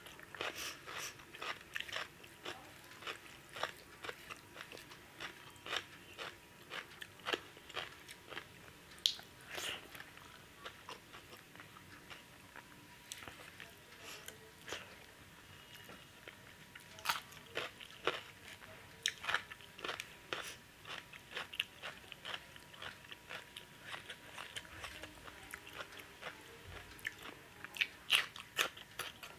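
Close-up chewing and lip-smacking of a person eating rice mixed with chicken curry by hand, a steady run of short sharp mouth clicks that thins out a couple of times.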